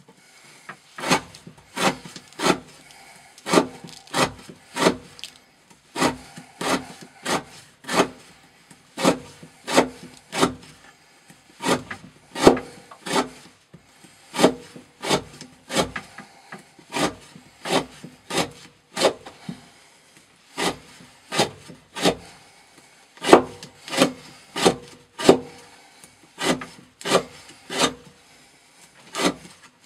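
A knife blade of CPM 15V steel, with a 42° V edge, is pushed again and again across the edge of a wooden batten, shaving off curls of wood. Each stroke is a short scrape, at about one and a half strokes a second, with a few brief pauses.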